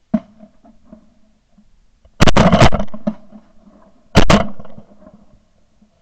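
Two very loud shotgun shots about two seconds apart, each dying away over about a second.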